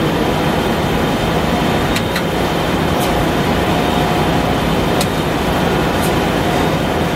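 Okuma LFS15-2SP twin-spindle CNC turning center running under power: a steady mechanical hum and hiss, with a few sharp clicks as the turret moves.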